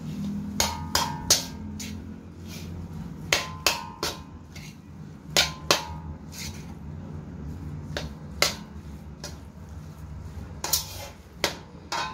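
Steel spatula knocking and scraping against a stainless steel kadai while stirring mashed potato into chicken mince: irregular sharp clinks with a short metallic ring, often in quick pairs or threes.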